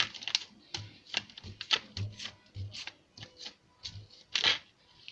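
Slime mixed with small beads being squeezed and kneaded by hand, giving irregular wet clicks and crackling pops, a few with a soft thud.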